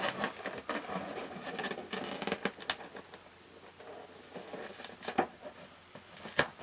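A paint-coated latex balloon being handled and pressed onto a stretched canvas: soft rubbery rustling with scattered clicks and taps. The sharpest tap comes near the end, as the balloon is lifted.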